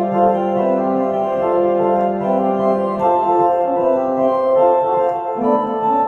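Organ played live: sustained chords that change every second or so, over a held low note that drops out about three seconds in.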